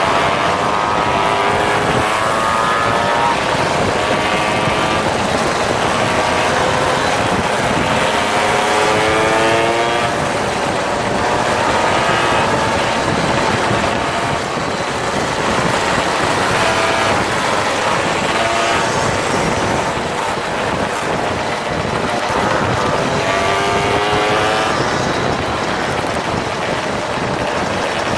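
Small moped engines running in a group ride, their pitched notes rising several times as they accelerate, over steady road and wind noise.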